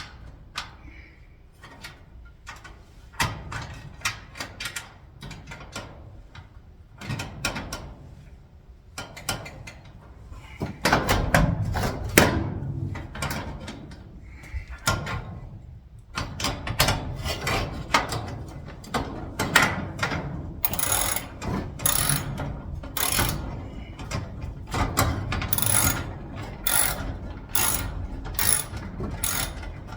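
Screws being driven by hand into a garage door lock's striker plate: a series of ratcheting clicks from the screwdriver, becoming a steady run of sharp clicks, about one and a half a second, in the last third.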